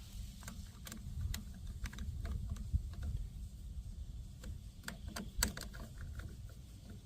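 Irregular light clicks and taps of small trimmer parts being handled, as the carburetor and new gasket are fitted back on, over a low rumble.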